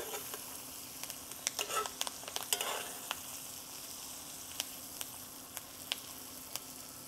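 Steaks sizzling in hot butter and oil in a cast iron skillet. A metal spoon basting them clicks and scrapes against the pan, mostly in the first three seconds.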